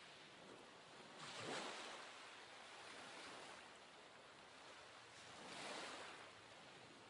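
Faint ocean waves washing in and receding, swelling about every two seconds.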